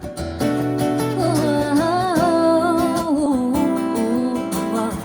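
Song played back through hi-fi loudspeakers: a wordless sung vocal line that glides and bends in pitch over acoustic guitar accompaniment.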